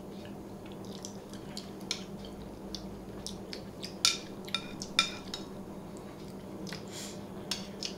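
Metal spoons clinking and scraping against soup bowls as two people eat borscht: scattered light clinks, with two sharper ones about four and five seconds in. A faint steady hum runs underneath.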